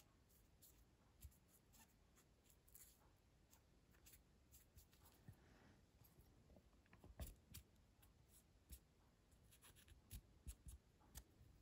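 Very faint rubbing and scattered light clicks: a cotton swab scrubbing the blade of a disassembled Bestechman Mini Dundee folding knife as it is turned in the fingers.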